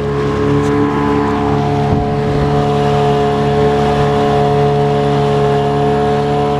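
Small outboard motor running at a steady speed, pushing a small boat through the water.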